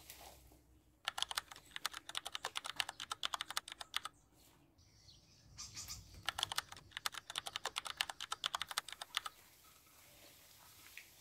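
Rapid typing clicks in two runs of about three seconds each, with a pause of about a second and a half between them.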